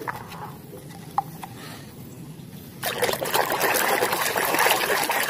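A few light clicks of plastic toy cars being handled in a plastic basket, then, about three seconds in, a hand sloshing and splashing through muddy water in a plastic tub.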